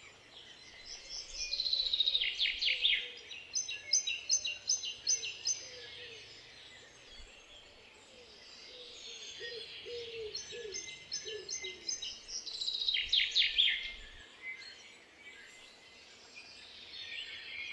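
Songbirds singing in a garden: a bird repeats a phrase of a quick run of notes followed by a row of evenly spaced high notes, twice, with quieter calls between.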